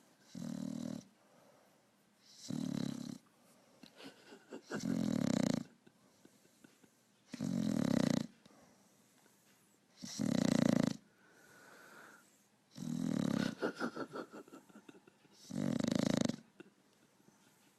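A sleeping pug snoring, seven snores in a regular rhythm about every two and a half seconds. One longer snore about two-thirds of the way through has a fluttering rattle.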